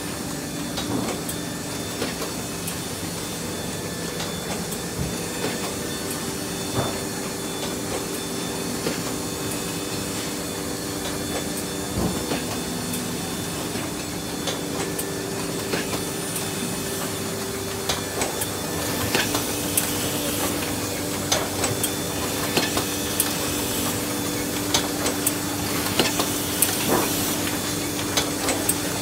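2004 Kolbus DA 240 hardcover case maker running: a steady mechanical hum with a few held tones, broken by irregular clicks and knocks. The clatter grows louder and busier about two-thirds of the way through.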